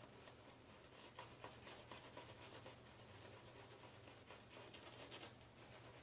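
Faint, quick rubbing and scratching of a badger-hair shaving brush working soap lather on the face.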